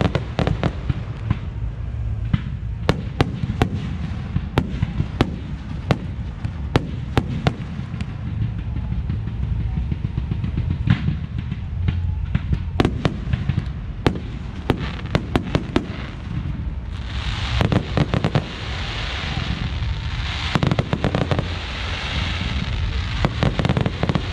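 Aerial fireworks display: shells and comets bursting in a rapid, irregular string of sharp bangs over a steady low rumble. About two-thirds of the way through, a dense crackling hiss of glittering crackle stars joins the bangs.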